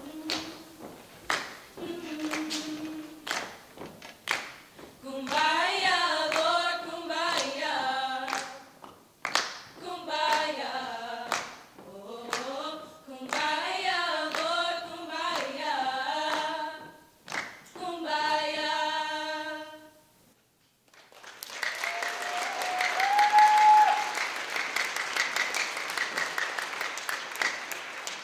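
A small group of young voices singing together a cappella in harmony, keeping time with steady hand claps. After a brief break comes a spell of audience applause with one rising whoop.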